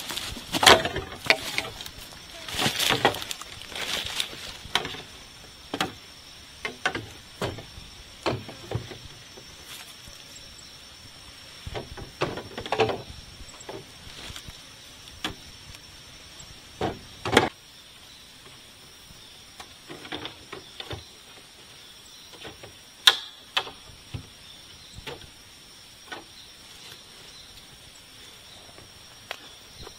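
Hollow knocks and clacks of bamboo poles bumping together as they are carried and stood against a bamboo frame, with scattered rustles and steps in dry leaf litter. The knocks come irregularly, a few seconds apart, with sharper single clacks about 13, 17 and 23 seconds in.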